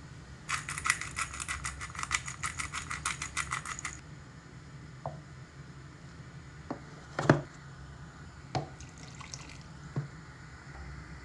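Pepper mill grinding black pepper in quick ratcheting strokes, about six a second for roughly three and a half seconds. Then come a few separate knocks of kitchenware, the loudest about seven seconds in.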